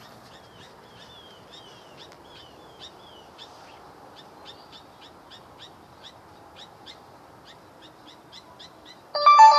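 Birds calling over and over, short high chirps about twice a second, some slurring downward in the first few seconds, over a faint steady background hiss. Near the end a much louder ringing tone with several steady pitches suddenly cuts in.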